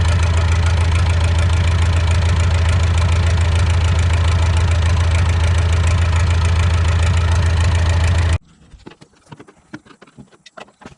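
David Brown 995 tractor's three-cylinder diesel engine idling steadily, a deep even hum, which cuts off abruptly about eight seconds in, leaving only faint scattered clicks.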